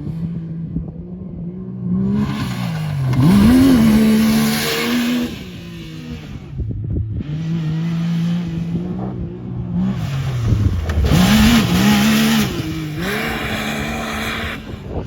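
Engine of a motor vehicle revving, its pitch climbing and dropping as it accelerates, in two bursts of hard running separated by a quieter stretch, with heavy rushing noise over it.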